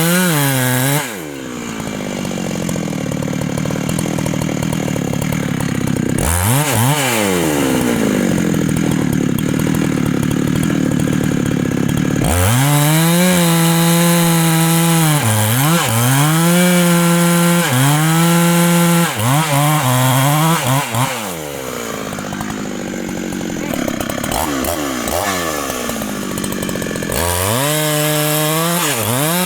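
Large Husqvarna two-stroke chainsaw cutting into a big trunk, its engine pitch repeatedly dropping under load and rising again as it revs up. It eases off briefly near the start and again in the last third, then climbs back to full revs.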